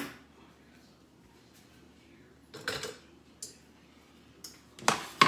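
Dishes and utensils being handled: a handful of separate clinks and knocks, the loudest in a quick cluster near the end.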